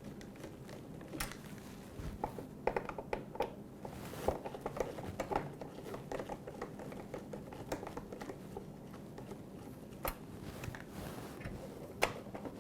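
Scattered light clicks, taps and small knocks of hand tools and plastic parts as the Phillips screws are taken out of a dishwasher's control board cover and the cover is worked off, over a faint steady hum.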